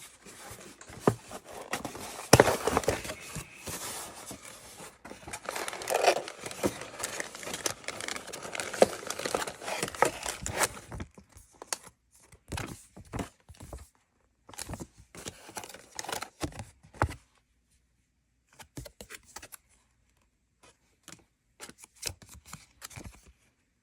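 Plastic packaging being cut, torn open and crinkled for about eleven seconds, then scattered light clicks and rustles as it is handled.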